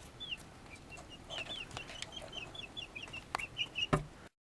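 Young chicks, about two weeks old, peeping in a brooder: a steady run of short, high, falling chirps, several a second. A couple of sharp knocks, the loudest about four seconds in, and then the sound cuts off.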